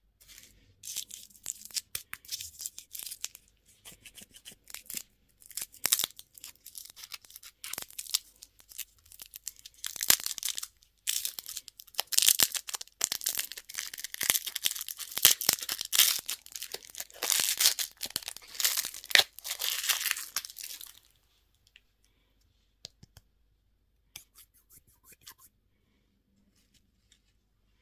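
Wrapping and packaging being torn open and crinkled by hand in a run of irregular rips and rustles that stops about 21 seconds in, followed by a few faint clicks.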